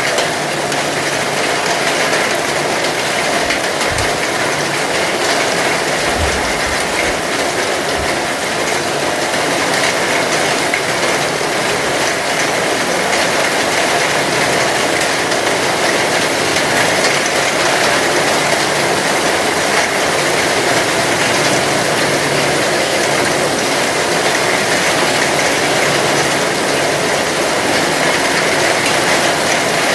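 Heavy rain falling steadily, a dense even hiss of drops, with a few brief low thumps in the first eight seconds or so.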